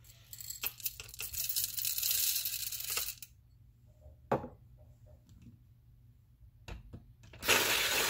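Coffee beans poured from a glass bowl into a Lido 3 hand grinder's hopper, rattling for about three seconds, followed by a single sharp knock. Near the end, a cordless-screwdriver driver seated on top of the grinder switches on and the grinder starts grinding with a steady whir.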